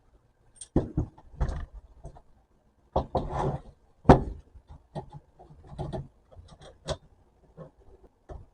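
An antique Czechoslovak-made manual typewriter being handled and its mechanism worked: a string of sharp metallic clunks and clicks, some with a brief rattle, about eight in all at irregular intervals.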